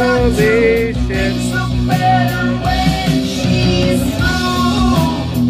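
Rock music with electric guitar and a singing voice, played loud through a hi-fi system's floor-standing loudspeakers driven by AGD Production Audion monoblock amplifiers.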